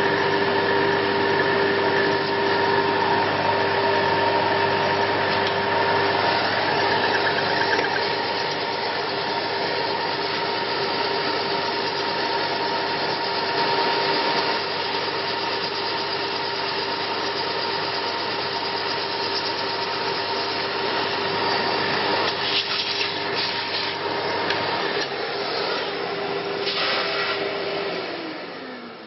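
Hobbymat MD65 mini lathe running with a steady whine and hum while the tool takes a cut along the turned bar, with a few sharp clicks late on. Near the end the motor is switched off and its pitch falls as the spindle spins down.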